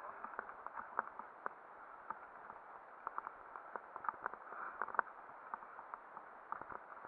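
Mountain bike rolling over a rough, leaf-strewn dirt trail: irregular clicks, knocks and rattles from the bike and tyres over the bumps, over a faint steady hiss.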